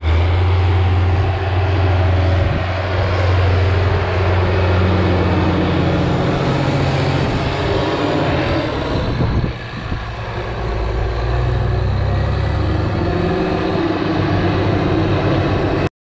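Large farm tractor's diesel engine running steadily close by; its low note drops and settles lower about halfway through.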